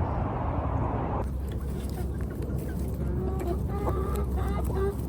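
Chickens clucking: a run of short, soft calls in the second half, over a low steady rumble. A rushing noise for about the first second cuts off abruptly.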